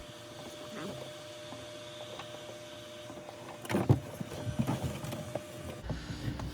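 Knocks and clicks from PVC water hose and fittings being handled and fitted in a cramped space, with one sharp knock a little under four seconds in, over a faint steady hum.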